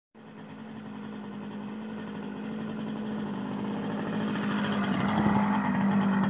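A motor vehicle engine running with a steady hum that grows steadily louder.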